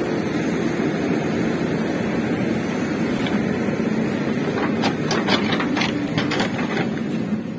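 JCB backhoe loader's diesel engine running steadily under load as its bucket pushes a stuck truck, with a quick run of sharp clanks and knocks about five to six seconds in.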